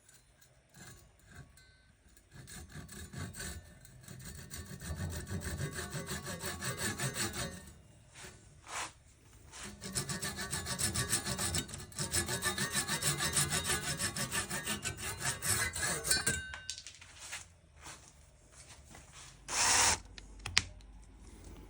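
A hand tool worked back and forth on wood, a few strokes a second, in two runs of several seconds each, typical of sawing, rasping or sanding wood during a strap-pin hole repair on a guitar body. A brief louder burst of noise comes near the end.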